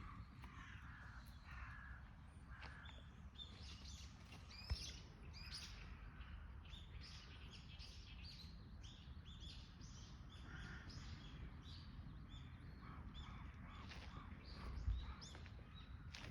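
Birds chirping and calling faintly, many short high chirps coming thick and fast through most of the stretch over a steady low rumble. Two brief thumps stand out, one about five seconds in and one near the end.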